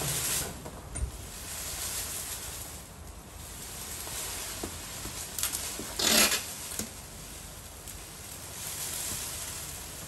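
Dry grass thatch rustling and scraping as an elephant rubs its back against the roof eave, swelling and fading in waves. A louder, short rush of noise comes about six seconds in.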